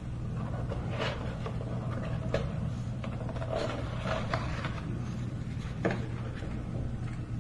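Packaging being handled and opened: scattered light clicks and rustles over a steady low hum.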